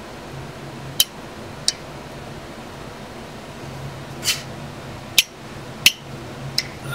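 Six sharp metallic clicks and snaps, unevenly spaced, from a red-handled plier-type tool gripping and working a brass plumbing fitting on a whole-house filter housing. A steady low hum runs underneath.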